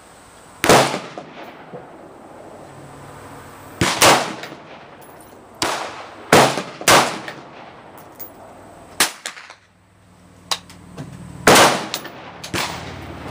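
AR-15 rifle fired at a slow, uneven pace, about eight sharp shots, each with a short ringing echo, and a few fainter cracks between them.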